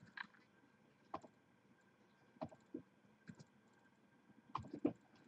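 Faint, scattered clicks of a computer mouse and keyboard as a list is copied and pasted, about eight in all at irregular spacing.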